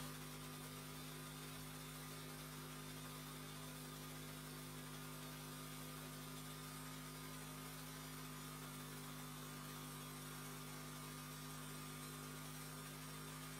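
Faint steady low hum with a light hiss and no change throughout.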